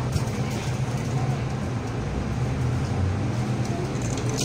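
Cabin noise inside an MTR M-train carriage: a steady low hum and rumble, with a short click near the end.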